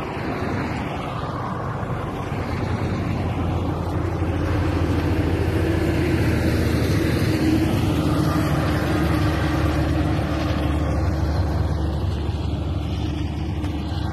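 Heavy truck's engine labouring up a steep grade, getting louder as it passes close by about halfway through, then fading as it pulls away.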